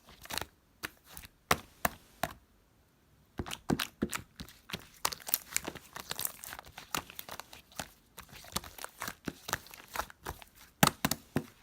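White slime being squeezed and pulled by hand, making irregular sharp crackling pops and clicks, with a short pause about two and a half seconds in.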